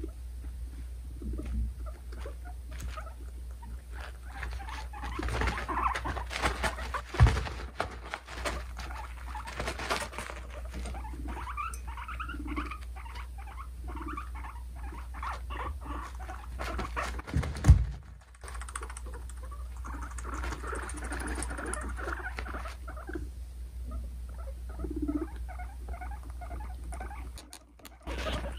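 Two guinea pigs making dominance sounds: runs of low rumbling and sharp clicking teeth chattering. Two loud thumps come about seven and eighteen seconds in.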